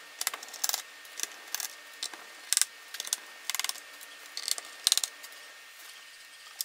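Small screwdriver turning out screws from a laptop's plastic bottom case: irregular sharp clicks and short bursts of rapid ticking, roughly one every second.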